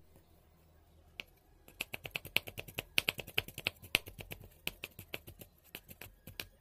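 Kitchen knife chopping a green chilli on a wooden cutting board: quick, sharp taps of the blade on the wood, several a second, starting about a second in.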